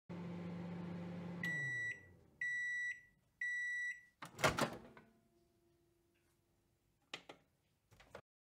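Microwave oven sound effect: the oven runs with a steady hum that drops in pitch as it stops, while three high beeps sound to signal that the cooking is done. A loud clunk and rattle follows, as the door is opened, and then two short clicks near the end.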